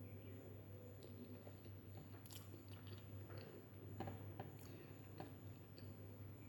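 Faint close-up chewing of a mouthful of chicken biryani, with scattered short wet mouth clicks about a second apart over a steady low hum.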